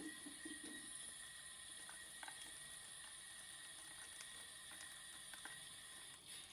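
Faint steady hiss of water running into a Maytag washing machine early in its delicate cycle, with a few light clicks.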